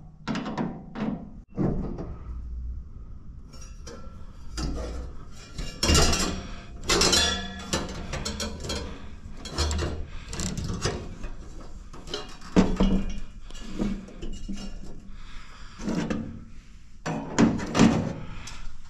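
Irregular clinks, knocks and scrapes of a garage heater's blower fan assembly being handled: the motor, its wire guard and the sheet-metal housing knocked and worked by hand, with a few louder thunks.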